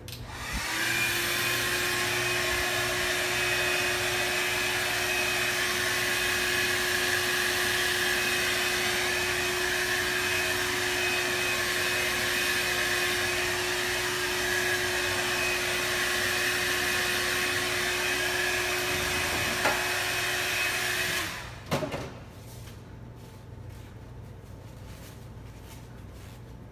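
Handheld hair dryer blowing steadily with a constant motor hum, switched on about half a second in and cut off about 21 seconds in.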